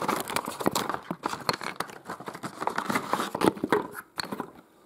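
Hands rummaging through cardboard packaging and wooden toy railway track pieces: crinkling and tearing of the packaging mixed with many small wooden knocks and clacks, thinning out near the end.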